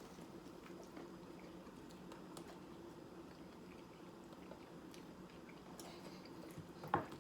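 Faint chewing of a fried chicken sandwich, with a few soft mouth clicks and a louder one near the end, over a low steady hum.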